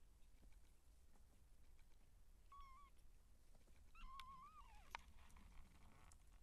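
Two faint, high-pitched mews from a two-week-old Siamese kitten: a short one about two and a half seconds in, then a longer wavering one about four seconds in that drops in pitch at its end. A small click follows just after.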